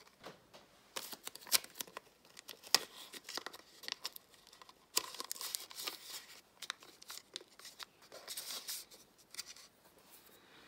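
Hands handling the opened plastic housing of a Xiaomi Mijia soap dispenser and tools on a workbench: scattered sharp clicks and knocks with brief stretches of rustling, the loudest clicks a couple of seconds in.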